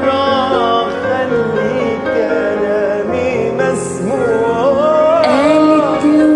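Arabic children's song playing: a musical interlude with instruments and a gliding, wordless melodic line.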